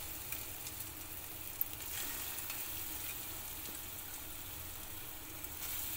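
Rice-and-urad-dal vada batter deep-frying in hot oil: a steady sizzle with fine crackling.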